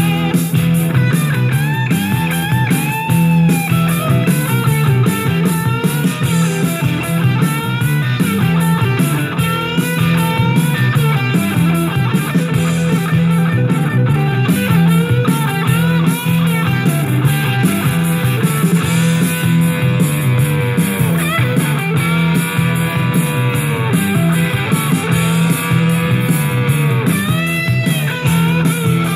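Rock music with a lead electric guitar bending notes over a steady bass, played back from a cassette on a Nakamichi CR-1A two-head deck.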